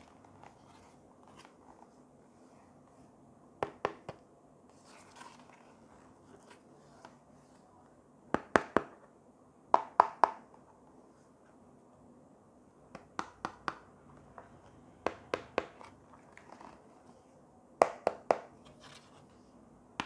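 Small cardboard box handled by hand: clusters of two to four sharp taps and clicks every few seconds as fingers press on the box and work at its end tuck flap, with a brief soft rustle in between.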